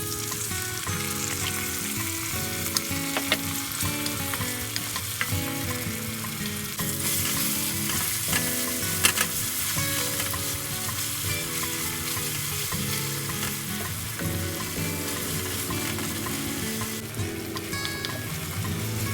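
Food sizzling as it fries in a pan, with a spatula stirring and scraping now and then; the sizzle grows louder for several seconds in the middle. A soft melody plays under it.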